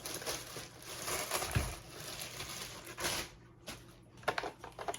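Plastic packaging rustling and crinkling as it is pulled off a space heater, followed by a few light clicks and knocks near the end.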